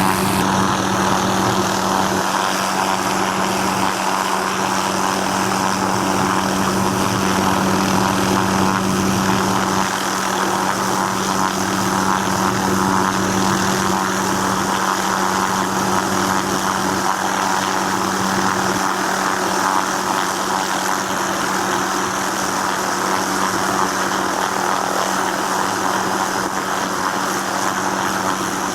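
Propeller aircraft engine running steadily at a constant pitch.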